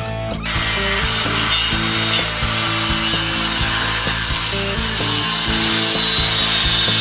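Electric angle grinder grinding into the steel guards of a mower conditioner's cutter bar. It starts about half a second in and runs steadily, with a high whine that drifts slightly lower. Background music with low held notes plays underneath.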